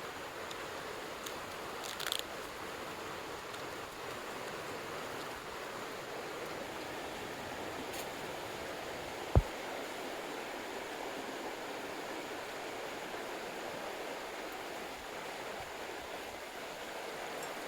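Mountain stream flowing with a steady rush of water. A few small clicks come about two seconds in, and one sharp knock about nine seconds in.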